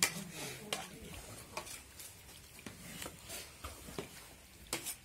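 Flat metal scrapers scraping and knocking against a large shallow metal pan as thickened sugarcane syrup is worked by hand while it sets into jaggery: irregular scrapes and clicks, one every second or so.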